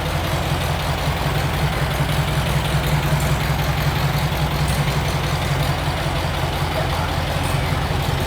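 Volkswagen Fusca (Beetle) 1300 L's air-cooled flat-four engine idling steadily and running loud, its sound mostly low-pitched.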